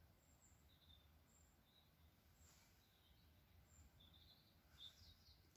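Near silence: faint room tone with a few brief, faint high chirps.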